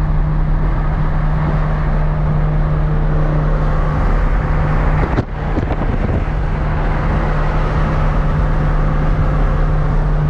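Supercar engine running at a steady pitch while cruising, with road noise. There is a short dip with a click about five seconds in.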